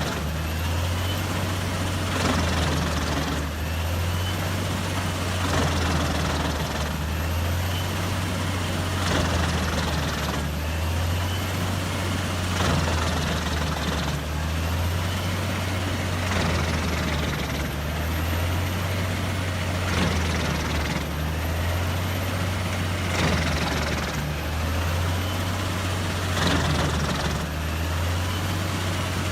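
Doppstadt DH 812 wood chipper running under load: a steady heavy diesel drone with a pulsing crunch that repeats about every two seconds as logs are pulled in and shredded.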